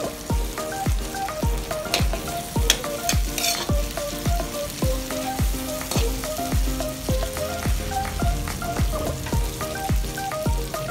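Background music with a steady beat of about two strokes a second, over food sizzling in a metal wok. A metal spatula scrapes the pan a few times between about two and three and a half seconds in.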